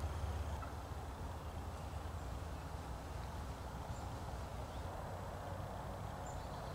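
Quiet woodland ambience: a steady low rumble with a few faint, brief high chirps.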